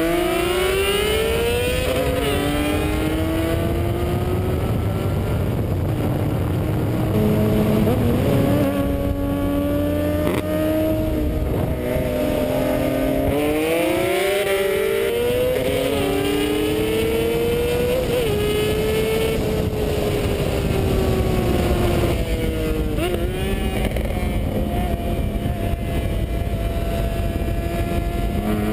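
A supercharged BMW E46 M3's straight-six and a Honda CBR600RR's inline-four accelerating hard side by side, engine pitch climbing and dropping back at each of several upshifts.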